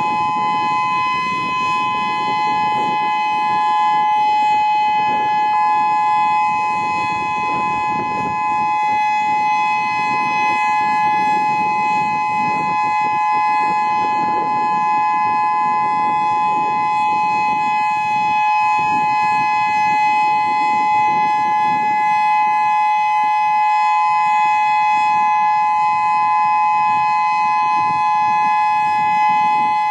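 Whelen WS-2000 electronic outdoor warning siren sounding a steady tone: two close pitches held level, with no rise or fall, over a low rushing noise underneath.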